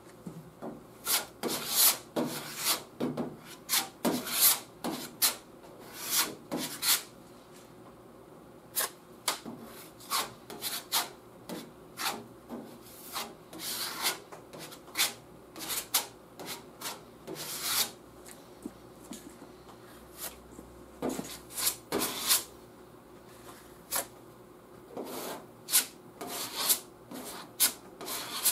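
Steel spreader scraping body filler across a truck's steel fender in repeated short strokes, about one or two a second, with brief pauses between passes.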